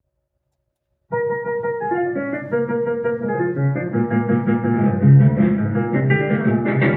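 A small swing-era jazz band starts the instrumental intro of a blues about a second in, after a moment of silence, with held notes over a steady low accompaniment.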